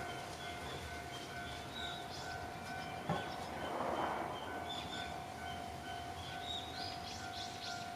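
Level crossing warning alarm ringing, a repeated electronic tone about twice a second over a steady lower tone. A single knock sounds about three seconds in.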